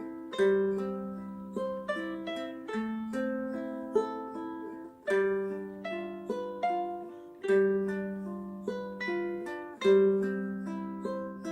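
Solo ukulele playing an instrumental intro: plucked chords, each stroke ringing out and fading before the next.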